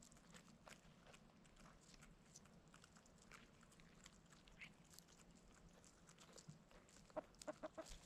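Faint chickens clucking: a quick run of about five short clucks near the end, over scattered faint clicks.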